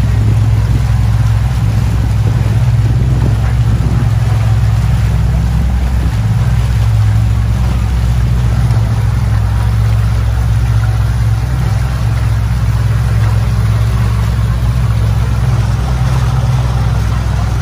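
Motorboat engine running steadily under way, a loud low drone, with a rushing hiss over it.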